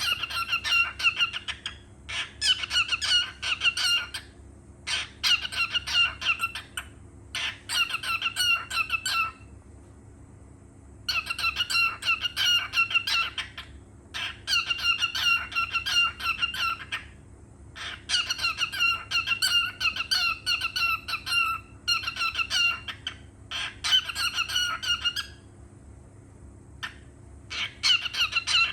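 Cockatiel chattering in bouts of rapid, repeated chirps, each bout one to three seconds long with short pauses between.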